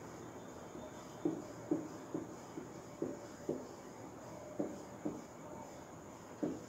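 Marker writing on a whiteboard: a run of short strokes, about two a second, as a row of zeros is written out, with a brief pause partway through.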